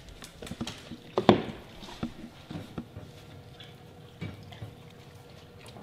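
A metal dog bowl clatters down on a tile floor about a second in, followed by scattered light clicks and taps.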